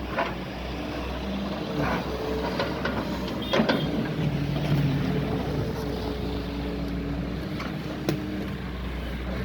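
Doosan DX140 excavator's diesel engine running under working load, its note shifting as it works, with a few sharp knocks and clunks. The loudest knock comes about three and a half seconds in.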